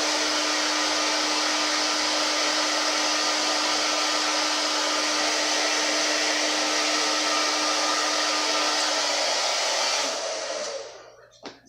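Turbo Styler hand-held blow dryer running steadily, a loud rush of air with a steady hum under it. About ten seconds in it is switched off and winds down over a second, followed by a couple of clicks near the end.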